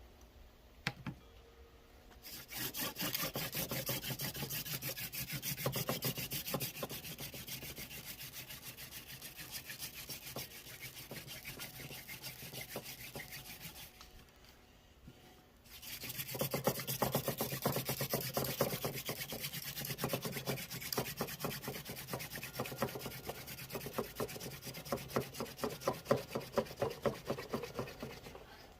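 Mullein hand-drill spindle spun back and forth between the palms, its tip grinding into a hearth board: a rhythmic rasping friction in fast strokes, with a pause of about two seconds midway. This is friction-fire drilling to build up heat for an ember.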